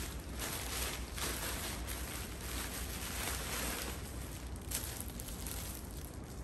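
Black plastic packaging bag rustling and crinkling as it is handled and opened, with plastic-wrapped items drawn out of it.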